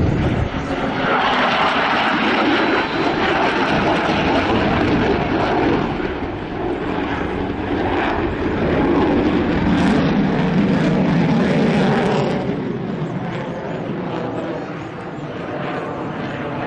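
F-15 fighter jet flying overhead, its engines making a loud jet roar that eases off after about twelve seconds.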